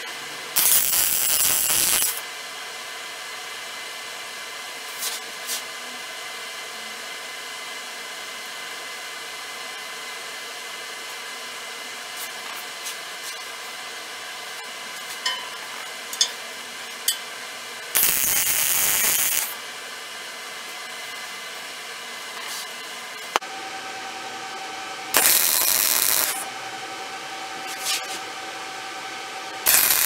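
Short bursts of MIG welding arc crackle as tack welds go onto a steel saw blade, each lasting about a second and a half, twice, with a long pause between. Near the end comes a stick-welding arc: two shorter bursts of crackle as the electrode is struck on a steel nut.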